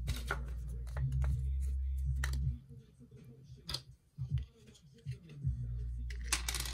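Light clicks and rustles of hands handling small fly-tying materials, over a low steady hum that cuts out for about three seconds in the middle and then returns.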